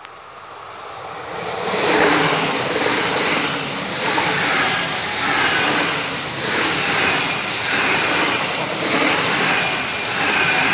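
Passenger train passing close by at speed: a rush of wheel and rail noise that builds over the first two seconds, then holds, swelling and easing in a steady rhythm as the coaches go by.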